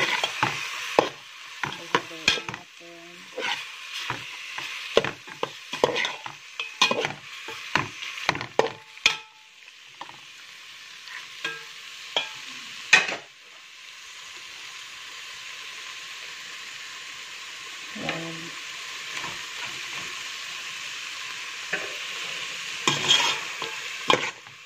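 Slotted metal spoon scraping and clattering against a metal pot while stirring chicken pieces with tomato paste and spices, over a steady sizzle of frying. The scraping comes thick for about the first half, stops for several seconds where only the sizzle is left, and starts again near the end.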